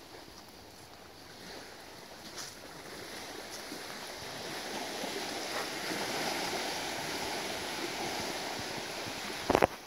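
Small waves washing onto a sandy lake shore, a steady noise that grows louder over the first half. A brief loud low thump comes near the end.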